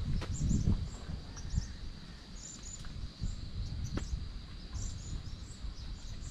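Outdoor nature sounds: a steady high insect drone with many short, high bird chirps over it, and some low rustling in the first second.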